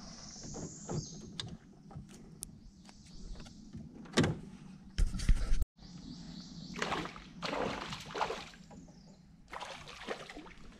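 Knocks and bumps against a plastic fishing kayak's hull as gear and rod are handled, with a strong thud about four seconds in and a heavy bump a second later. Bursts of hissing, rustling noise follow between them.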